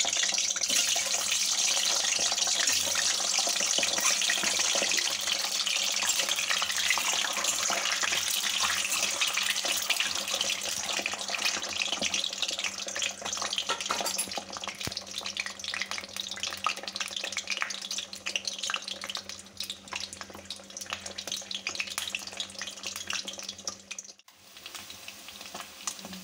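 Hard-boiled eggs frying in hot oil in a kadai: a steady crackling sizzle, loudest at first and thinning out as the frying goes on, with a brief drop near the end. A faint low hum runs underneath.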